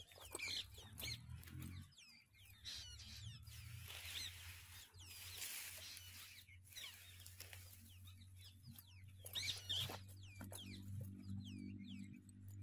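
Birds chirping with many short calls, over the rustle of freshly cut green fodder being handled and gathered into a pile, and a low steady hum.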